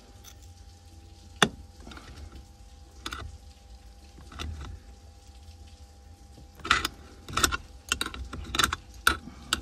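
Hand work on a Daewoo Matiz's gear-shift mechanism: plastic and metal clicks and rattles as the shift-cable ends and clips are pried and snapped off. One sharp click comes about a second and a half in, and a quick run of clicks and rattles near the end.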